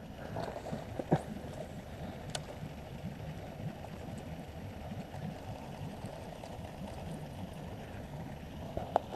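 Water lapping and sloshing against a small fishing boat's hull, a steady low wash, with a few faint clicks or knocks from gear on the boat, the sharpest near the end.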